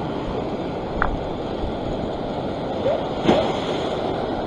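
Surf washing and churning over a rock ledge: a steady rush of breaking water. Two brief sharper sounds cut through it, about a second in and just after three seconds, the second the louder.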